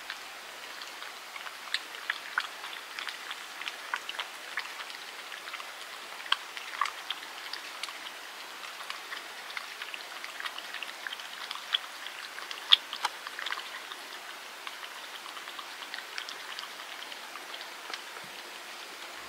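Tabby cat eating wet food from a plastic bowl: irregular wet, smacking clicks of chewing and lapping, scattered unevenly.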